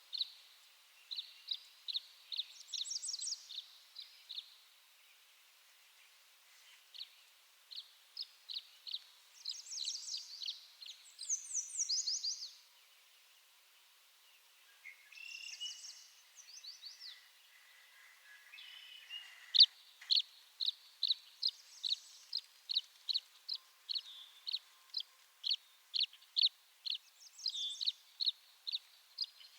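Tree swallow calling: bouts of short, high chirps and quick twittering runs of notes, broken by brief pauses. From about two-thirds of the way through, the chirps settle into a steady series at about two a second.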